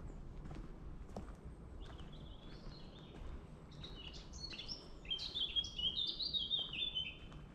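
A small songbird singing a long, fast run of high chirping notes that starts about two seconds in and grows louder toward the end, over a low steady outdoor rumble with faint footsteps on a woodland path early on.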